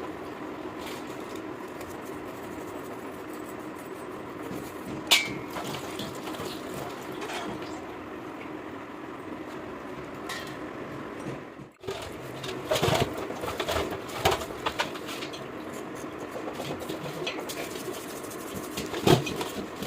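Workshop background with pigeons cooing and occasional sharp metal taps and clicks from hand tools. Near the middle the sound briefly drops out, then the taps come more often.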